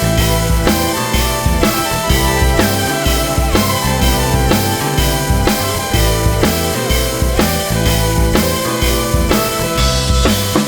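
Background music with a steady drum beat: drum kit with bass and snare under sustained instrumental notes.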